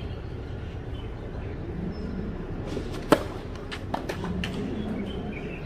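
Tennis ball struck sharply by a racket about three seconds in, then fainter hits and bounces a second or so later from the far end of the court, over a steady outdoor background hum.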